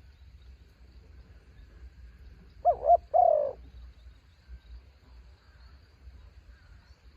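Spotted dove cooing once, about three seconds in: two quick short notes followed by a longer one.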